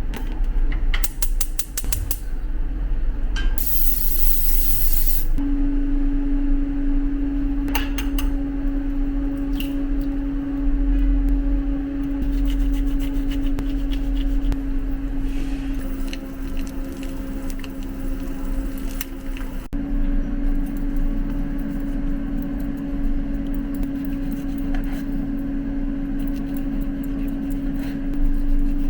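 Cooking oil spray hissing once for nearly two seconds, a few seconds in, followed by a steady low hum that carries on, with occasional light clicks.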